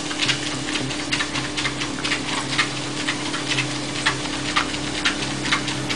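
Motorised treadmill running with a pug walking on the belt: a steady motor hum with light ticks about twice a second.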